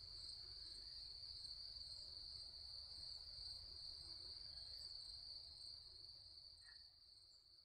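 Crickets trilling at dusk: a steady high-pitched trill with a fainter, pulsing trill above it, over a faint low rumble, fading out near the end.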